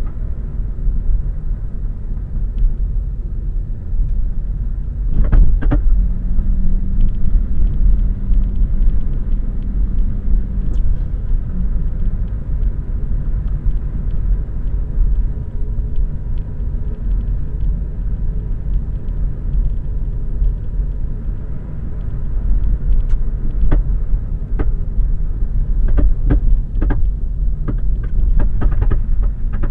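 Lada Vesta on the move: a steady low rumble with sharp knocks about five seconds in and a cluster of knocks near the end. This is the knock from under the bonnet that the owner traces to a broken right engine mount.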